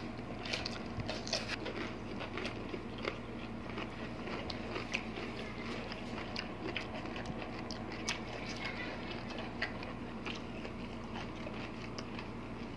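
Close-up chewing and biting of braised pork hock and fresh cucumber slices, with many small crunches and mouth clicks scattered throughout.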